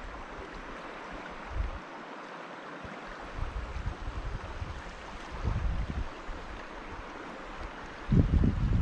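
Steady rush of flowing river water, with low buffets of wind on the microphone coming and going and strongest near the end.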